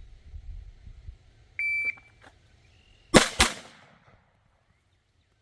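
Shot-timer start beep from a phone range app. About a second and a half later come two pistol shots about a quarter second apart, a draw followed by a fast two-shot pair. The shots are the loudest sounds.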